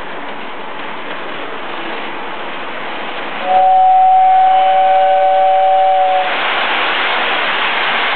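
Toy electric train running on its track with a steady rushing noise. About three and a half seconds in, its whistle sounds a steady two-note chord for about three seconds, then a louder hiss follows.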